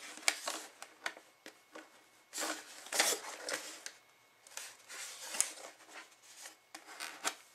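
Hands rubbing, pressing and tapping on a foam RC model airplane fuselage: scattered sharp clicks and scrapes, with three longer rasping rubs.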